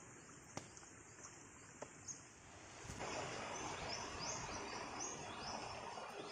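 Water running in a small stream, with a few faint knocks in the first half. About three seconds in the running water gets louder, and a bird calls a quick run of short rising high notes over it.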